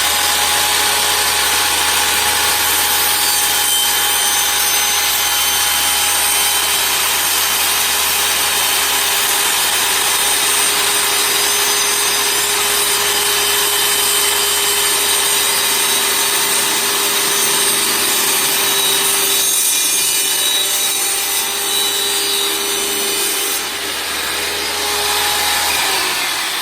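Table saw running steadily with its blade cutting through wood, a constant whine over the rasp of the cut. The tone fades out near the end.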